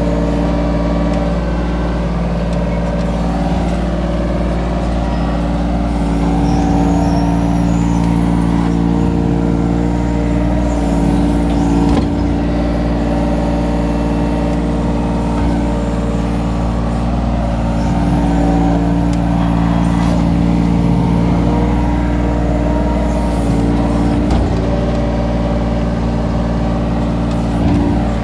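Kobelco mini excavator's diesel engine running steadily at working revs while the arm and bucket dig, with slight rises in load now and then.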